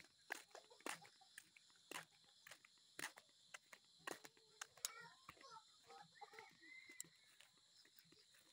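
Faint footsteps on a dirt path, about two steps a second, with a faint wavering call in the distance around the middle.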